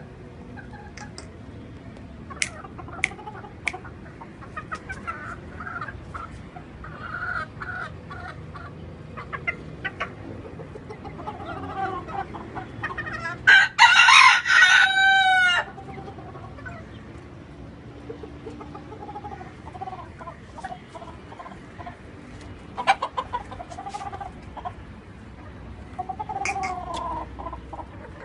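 Silver-laced Polish chickens clucking, with the Polish rooster crowing once, loud, for about two seconds around the middle, dropping in pitch at the end. A few sharp clicks are scattered through.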